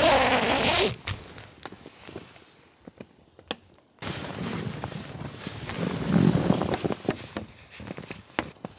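A loud sound with wavering, sliding pitch for about the first second, cutting off suddenly. Then faint clicks, and from about four seconds in, rustling of a down jacket, sleeping quilt and nylon tent fabric with small clicks, as a person moves about inside a tent and handles the door and tarp.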